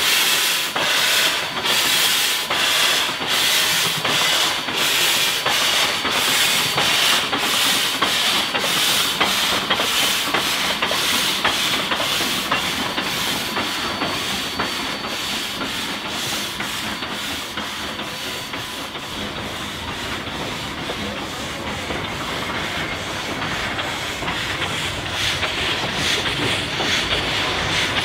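Heisler geared steam locomotive working slowly with its cylinder cocks open: loud hissing steam jets over a rhythmic exhaust chuff a few times a second. The hiss eases off in the second half and picks up again near the end.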